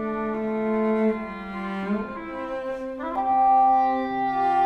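Slow chamber music for oboe, harp and cello: long bowed cello notes with other held lines above, the chord changing about once a second, and a strong high held note entering about three seconds in.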